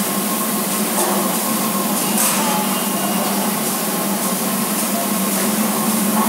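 Steady machinery hum with a constant hiss, as from machines running nearby; a couple of faint clicks about one and two seconds in.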